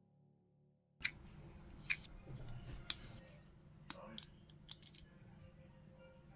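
Sharp little clicks and taps of a hobby utility knife blade and fingertips working thin strips on a small plastic model part. They begin about a second in, roughly one a second at first, then come in a quicker cluster.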